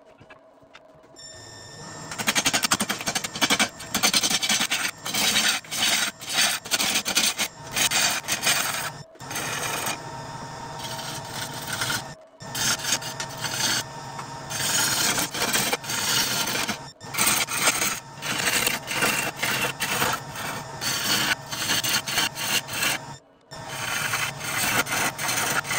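Wood lathe turning a wooden blank as a long-handled turning tool cuts into it, a loud scraping, shaving sound in repeated bursts as the tool is pushed through pass after pass. The cutting starts about two seconds in.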